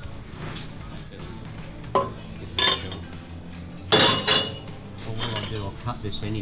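Four sharp metallic clanks with a short ring, in two pairs about two seconds apart, over background music.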